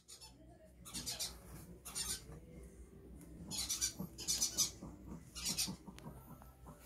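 Pomeranian sniffing at a wire bird cage in about five short, quick bouts, roughly a second apart.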